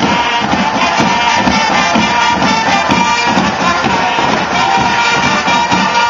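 Marching band playing a tune, with drums keeping a steady beat under sustained melody notes.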